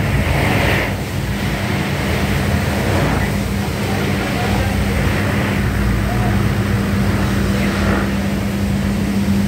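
An automatic train-wash machine heard from inside an LRT Jabodebek car: water spraying and rotating brushes scrubbing the car's body and windows, giving a steady rushing noise over a constant low hum.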